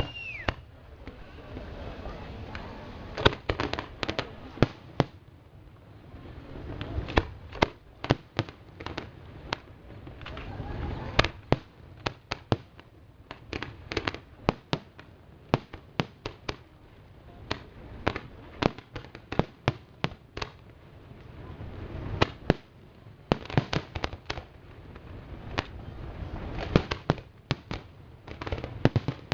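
Aerial fireworks display: many sharp shell bursts and bangs at irregular intervals, often in quick clusters, over a low rumble.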